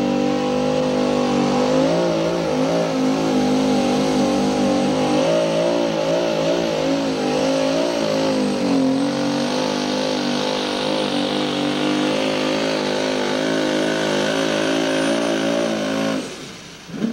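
Pulling tractor's engine at full throttle as it drags the sled down the track, its pitch wavering up and down as it labours. About sixteen seconds in, the engine sound drops away suddenly as the run ends.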